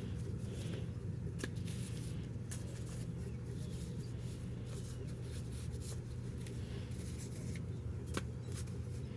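A steady low hum under scattered light clicks and rustles, like packaging being handled.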